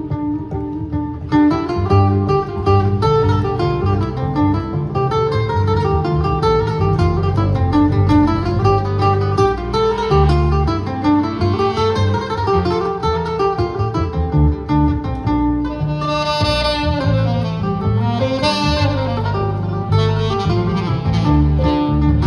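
Live jazz trio of acoustic guitar, saxophone and upright double bass playing, with a melodic line over a walking bass; the texture fills out about a second in.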